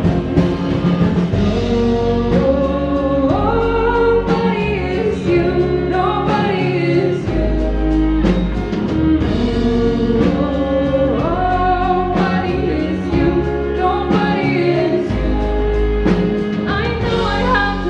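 A band performing a song: a sung melody over instruments, with held bass notes that change every few seconds.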